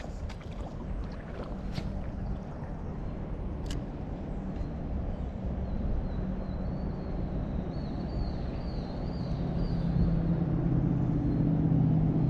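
An engine running with a steady low hum that gets louder over the last few seconds. A small bird chirps in quick descending notes in the middle, and a few sharp clicks come in the first few seconds.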